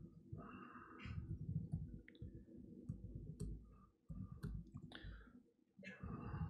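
Laptop keyboard typing picked up by the lectern microphone: irregular key clicks over dull low thuds from the keystrokes.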